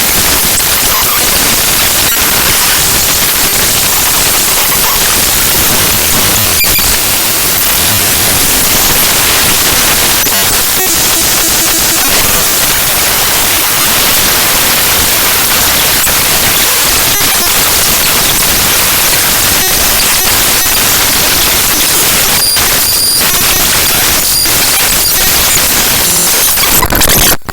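Raw binary data of the ffmpeg.exe program file played back as audio by Binary Waterfall: loud, dense harsh static, with a few faint high tones near the end and a brief sudden drop-out at the very end.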